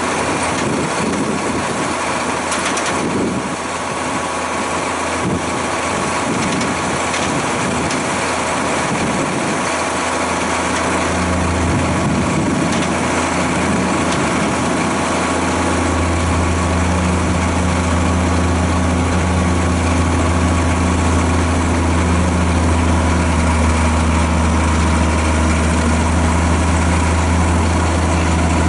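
Diesel engine of a Caterpillar E-series motor grader idling steadily. From about ten seconds in, a deeper low hum grows stronger and then holds.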